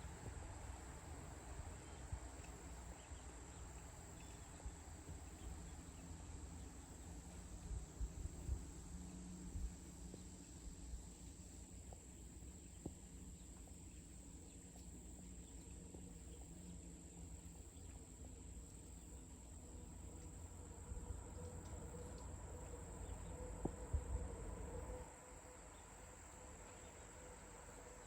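Insects chirring in a steady, continuous high tone, over a low rumble with a few soft knocks that drops away near the end.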